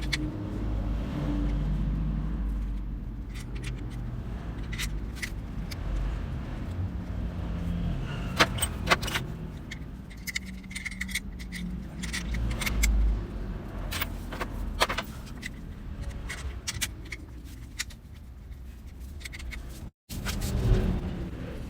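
Metal hand tools and bolts clinking and clicking at irregular moments while a motorcycle's generator cover is being refitted, over a steady low rumble.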